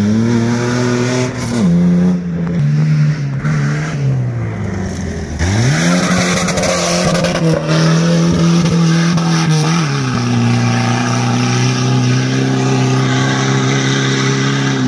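Off-road racing 4x4's engine revving hard, its pitch rising and falling as it drives the course. It dips about five seconds in, then climbs sharply and holds at high revs. The tyres churn through loose stony dirt.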